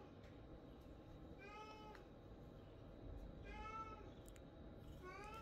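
A domestic cat meowing repeatedly, three meows about two seconds apart, each rising and then falling in pitch. The owner reads the meowing as begging for food or a treat the cat has already had.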